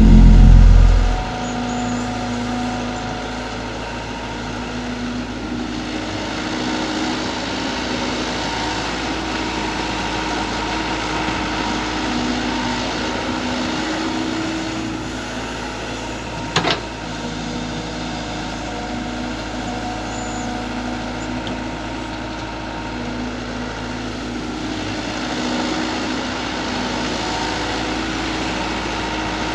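IHI long-arm excavator running steadily, its diesel engine tone shifting now and then as it works. There is a loud low rumble in the first second and a single sharp click about seventeen seconds in.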